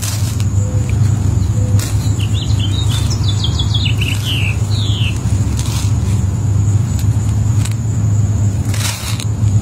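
A steady low rumble runs throughout, with a bird chirping a quick run of notes about three to five seconds in. Near the end there is a faint click as an apple snail egg clutch is pressed and squashed with a flat tool.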